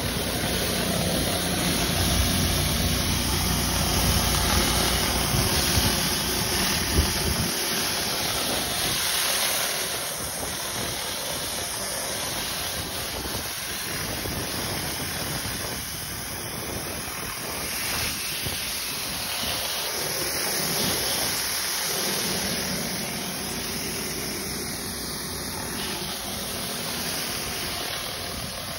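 Pressure-washer surface cleaner being pushed over concrete: a steady hiss of high-pressure water from its spinning spray bar under the round deck. A low rumble underneath fades out about seven seconds in.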